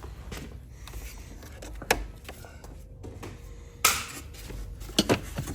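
A few sharp knocks and clicks, the loudest about four seconds in, with two quick ones near the end, over a low steady hum.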